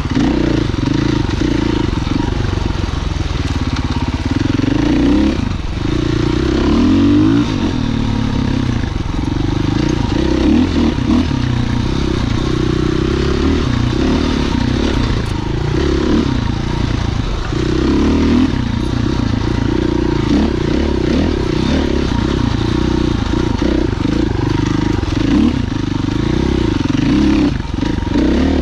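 Husqvarna FE 501's single-cylinder four-stroke engine running under a rider on a trail, its pitch rising and falling again and again as the throttle is opened and rolled off.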